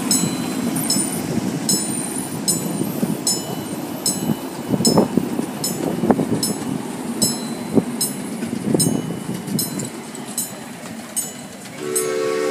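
Miniature railroad ride train rolling past on its track with a low rumble and scattered knocks, over a regular ringing metallic tick about twice a second. A horn sounds near the end.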